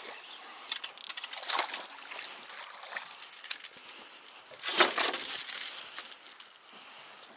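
Handling noise as a small black bass is landed and lifted into a boat on a jerkbait: rustling and scattered light clicks, with a louder burst of rustling about five seconds in.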